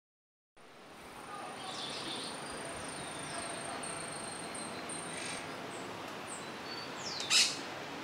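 Birds chirping and calling over a soft steady hiss and a thin high steady tone, fading in after a moment of silence. About seven seconds in, one loud call sweeps steeply downward and stands out above the rest.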